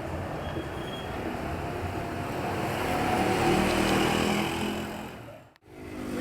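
Street traffic: a passing motor vehicle's engine grows louder from about three seconds in over a steady hum of the street. Near the end the sound drops out abruptly for a moment and comes back.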